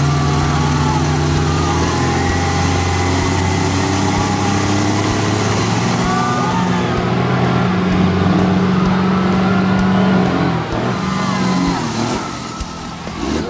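Heavy vehicle engine running loud and steady. Its pitch steps up about six seconds in, then it eases off and drops away in the last couple of seconds.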